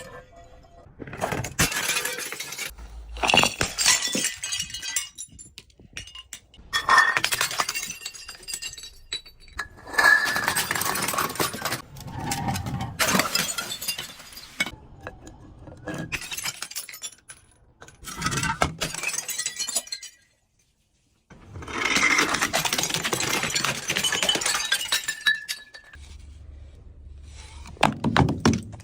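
Glass bottles breaking and being crushed: a series of separate crashes and crunches with glassy clinking, broken by about a second of dead silence some twenty seconds in.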